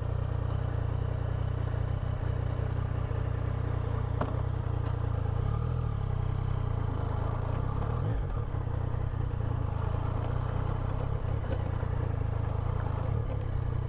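Yamaha Tracer 900 GT's three-cylinder engine running steadily at low revs as the motorcycle creeps along at walking pace, with a few faint clicks.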